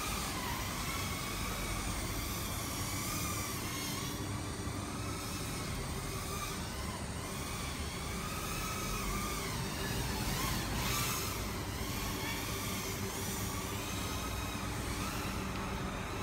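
Small FPV quadcopter drone's motors and propellers whining, the pitch wavering up and down as the throttle changes, over a steady low rumble.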